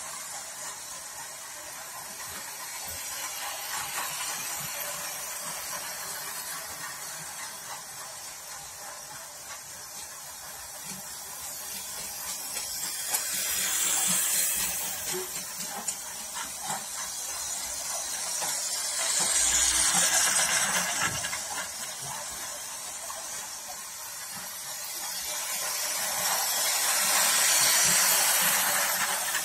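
Toy trains running on plastic track: a high-pitched whirring noise from their small motors and wheels. It swells and fades three times, about halfway through, two-thirds of the way through and near the end.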